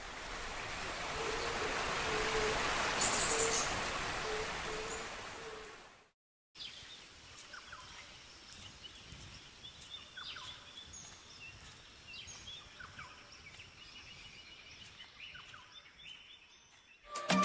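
Rushing water of a waterfall: an even hiss that swells for a few seconds and then fades out. After a short silent cut, a quieter outdoor background follows, with scattered short bird chirps.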